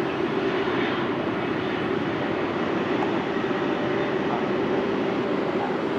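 Jet airliner engines at takeoff thrust during a departure: a steady, even rushing roar with no sudden events.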